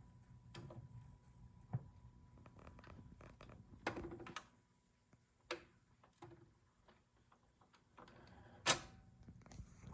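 Scattered mechanical clicks and clunks from a BSR C129 record changer's tonearm and shut-off mechanism, over a faint low hum that drops out midway; the loudest click comes near the end.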